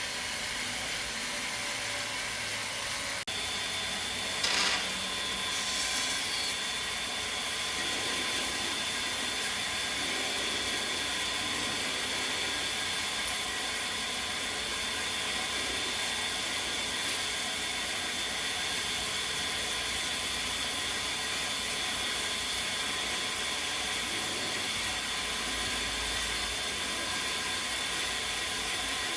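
A power tool working wood with a continuous scraping, rasping noise. A steady motor whine comes in about three seconds in and holds.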